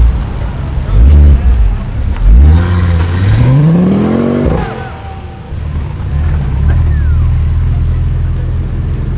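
A car engine revved hard: two short loud blips in the first second and a half, then a full-throttle pull away with the engine note climbing for about two seconds. It ends about halfway through, and a steady engine drone carries on from then.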